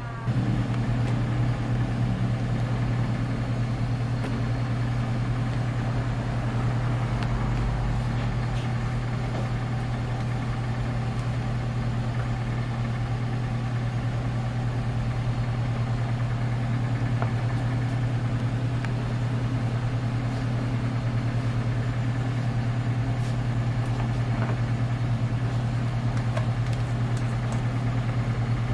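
Steady low mechanical hum, like a kitchen machine's motor running, unchanging throughout.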